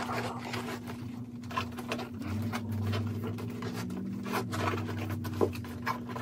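A canvas-and-leather Hermès Herbag being handled and closed: rustling of the bag and a run of small clicks and taps from the leather strap and its hardware.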